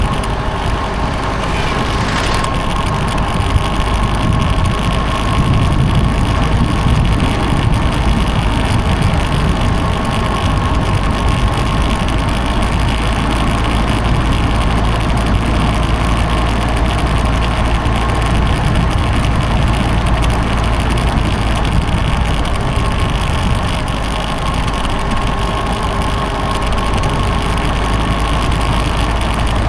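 Motorcycle engine running steadily on the move, with a constant low wind rumble on the microphone.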